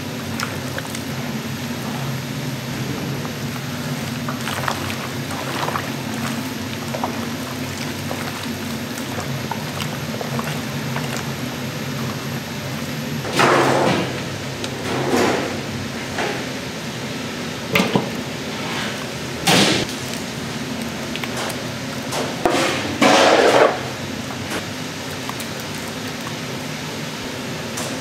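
Steady hum of food-factory kitchen machinery, with several short clatters and splashy bangs from about halfway through to near the end.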